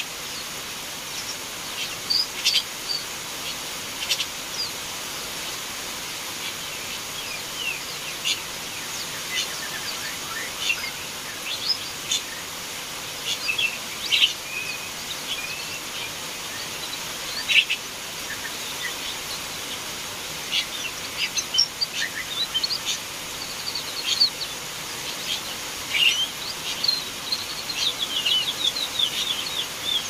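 Pet Taiwan white-eye (pleci Taiwan) giving short, high chirps scattered throughout, with a quick run of twittering near the end. This is a young bird just beginning to learn its twittering song (ngeriwik).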